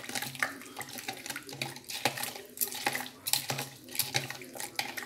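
Metal spoon stirring lime pieces, sugar and rum in a disposable plastic cup: liquid sloshing with repeated irregular clicks and scrapes of the spoon against the cup.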